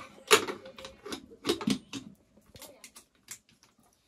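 Metal cooking pots, lids and utensils clinking and knocking against each other on a wood-fired mud stove: a quick run of clatters in the first two seconds, then a few fainter ticks.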